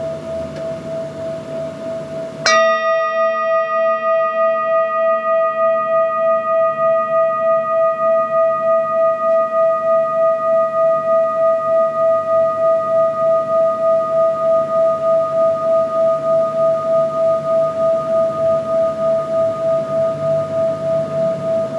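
Large metal singing bowl ringing with one steady low tone that pulses in loudness. It is struck once about two and a half seconds in, adding a bright cluster of higher overtones; the highest fade within several seconds while the low tone and one overtone ring on.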